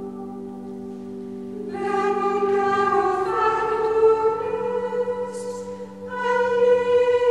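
Slow background music of long held notes with sung voices, getting louder about two seconds in and again about six seconds in.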